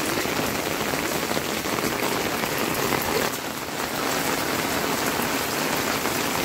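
Steady rain falling: a dense, even hiss of many drops, dipping briefly a little over three seconds in.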